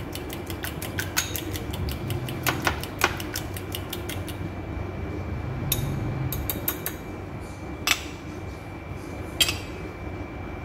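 A metal fork beating eggs in a ceramic bowl, its tines clicking quickly against the bowl for about four seconds. After that come a few single clinks, over a steady low background hum.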